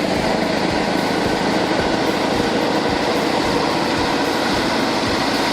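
A heavy truck's engine running steadily under load, a constant loud drone.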